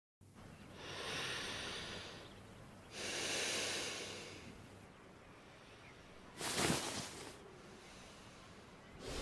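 A person breathing slowly: two long, soft breaths, then a shorter, louder breath about six and a half seconds in.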